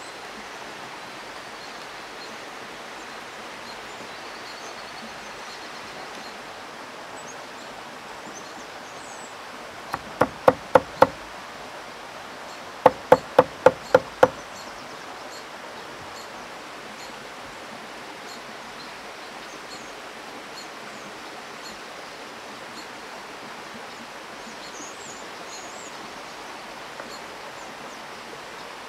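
A forest stream running steadily over rocks, with two quick runs of chopping in the middle: a large cleaver-style knife striking a wooden board as it cuts fresh herbs, five strokes and then six, about four a second.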